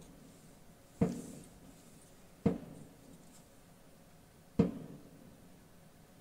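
Three sharp strikes, each ringing out briefly, spaced about one and a half to two seconds apart.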